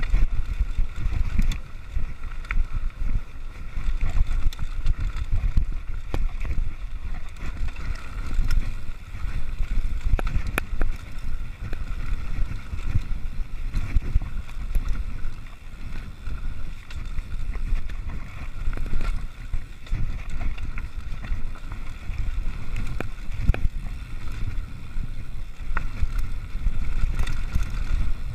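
Mountain bike descending a rough dirt singletrack: wind buffeting the microphone with a constant low rumble, over the rattle of the bike and tyres on dirt and stones, dotted with frequent small clicks and knocks.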